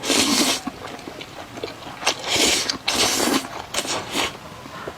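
Close-miked mouth sounds of eating pasta: several loud, hissy slurps of noodles, about half a second each, with wet chewing between them.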